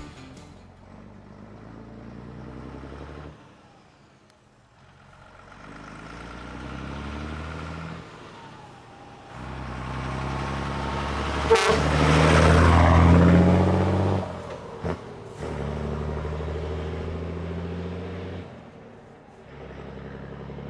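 Scania 93M truck's inline-six diesel with a loud open exhaust pipe, pulling away and accelerating through the gears, the engine note dropping out briefly at each gear change. It is loudest as the truck passes about twelve seconds in, with a sharp click at that moment, then quieter as it drives off.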